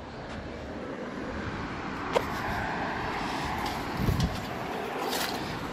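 Steady outdoor background noise with no speech. There is a sharp click about two seconds in and a dull low thump about four seconds in.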